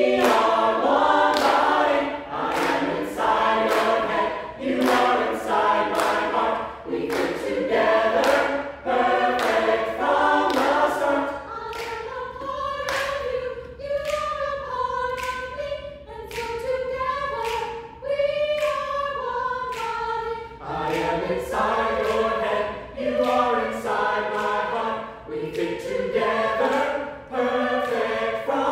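Mixed choir of women and men singing a cappella in a rhythmic song, with handclaps keeping the beat. About twelve seconds in, the singing thins to a softer, held melody, and the full choir comes back in near twenty seconds.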